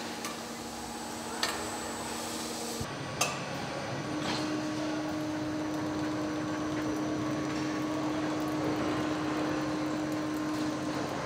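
Mercedes-Benz Sprinter assembly line machinery: a steady factory hum with a few sharp metallic clicks and clanks. The hum changes abruptly about three seconds in, and a steady whine sets in about a second later.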